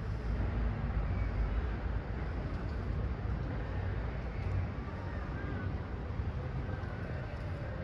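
Steady low outdoor rumble of background noise, with a few faint, short higher-pitched tones now and then.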